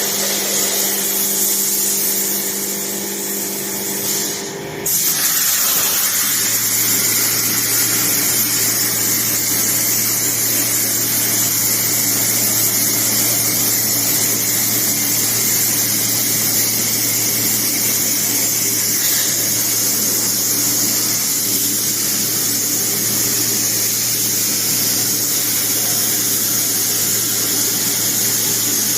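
CNC plasma cutter cutting flat steel bar: a steady loud hiss of the plasma arc and compressed air. About five seconds in there is a sudden burst, and after it a low steady hum sets in under the hiss.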